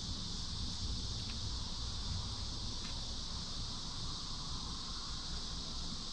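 Steady, high-pitched chorus of crickets, with a couple of faint clicks.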